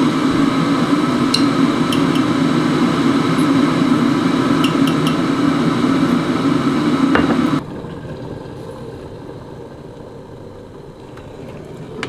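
Electric coffee machine running with a steady loud hum and a few light clinks, cutting off abruptly about seven and a half seconds in, leaving quiet room tone.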